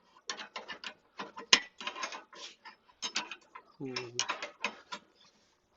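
Rapid metallic clicking and clattering of mower-deck hardware being worked by hand, in runs of about six clicks a second with short pauses. A brief low voice sound comes about four seconds in.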